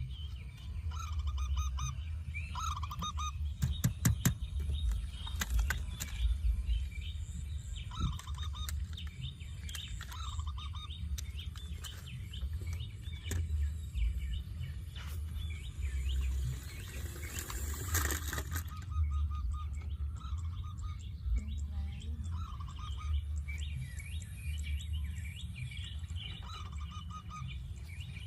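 Birds chirping and calling over and over, short notes repeating through the whole stretch, over a steady low rumble with a few sharp clicks.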